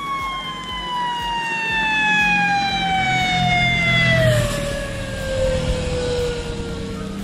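A vehicle siren sounds one long wail that slowly falls in pitch, with a sudden drop in pitch about four seconds in as a motorcycle passes close by. Motorcycle engine noise runs underneath, loudest as it goes by.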